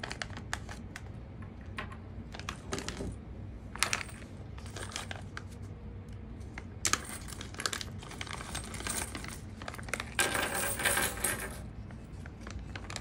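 Small plastic knobs and metal washers tipped out of plastic bags, clicking and clattering onto a tabletop, with the bags crinkling as they are handled; the clatter is densest about ten seconds in, as a bagful is poured out.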